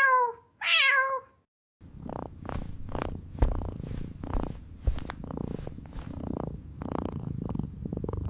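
A domestic cat gives two short meows, each falling in pitch, then after a brief pause purrs continuously with a rough, uneven pulsing.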